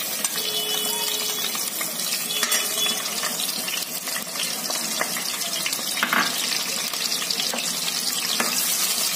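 Sliced onions sizzling and crackling in hot oil in a pressure cooker as they start to fry, stirred with a metal spoon that clinks against the pot a few times.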